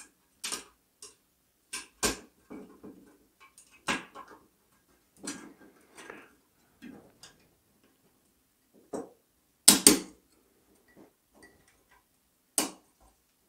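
Thin sheet-metal kit parts clicking and rattling as their tabs are pushed into slots and clipped in by hand: irregular sharp clicks, the loudest a quick double click about ten seconds in.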